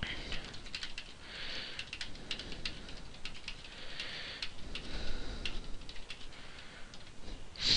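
Typing on a computer keyboard: an irregular run of quick keystroke clicks.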